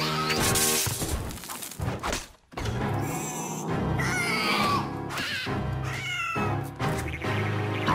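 Cartoon soundtrack: music with animated animal voice effects. A low pitched call at the start, then, after a brief break about two and a half seconds in, a steady bass line with several quick falling squeals.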